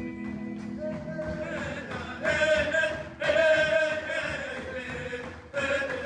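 Live band music with guitars and a steady beat, as voices come in about a second in singing long held notes that swell louder twice.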